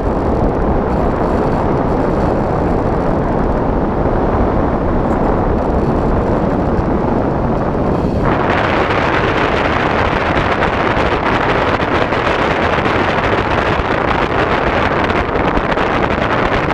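Steady rushing wind noise as air streams past the onboard camera of an RC plane gliding with its motor off. The rush turns brighter and hissier about eight seconds in.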